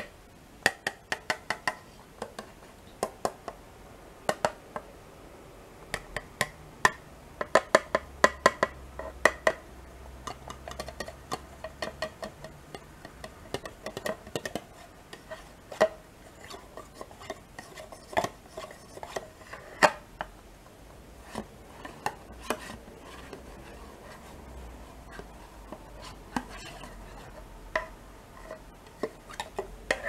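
A small metal-tipped tool tapping and scraping on a soft plastic yogurt package, making sharp light clicks, often in quick runs with short pauses between.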